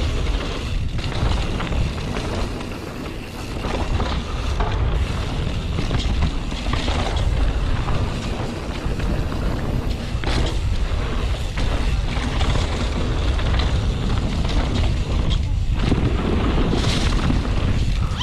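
Downhill mountain bike ridden fast down a dirt trail: wind rumbling on the camera microphone over the sound of tyres rolling on dirt, with a few short knocks as the bike goes over bumps.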